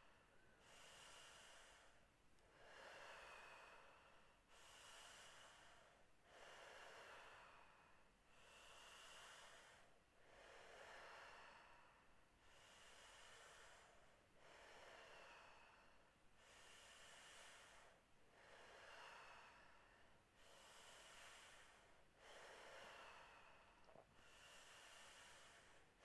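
Faint, deep rhythmic breathing, with a full breath in and a full breath out each taking about two seconds and no pause between them. This is the fast power breathing of a Wim Hof-style breathing round, about seven breaths in all.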